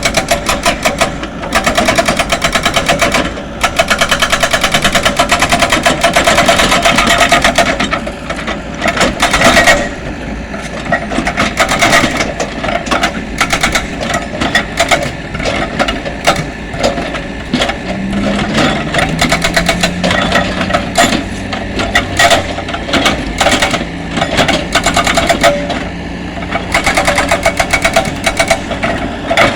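Engine-driven road-repair machine pounding rapidly and steadily, the rapid hammering of a small powered impact tool. A lower, steady engine hum joins about halfway through.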